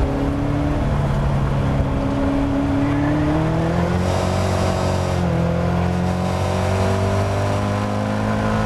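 Caterham Seven race car's engine heard from inside the open cockpit under hard acceleration. The engine note dips briefly about a second in, climbs steadily, drops with an upshift about five seconds in, then climbs again.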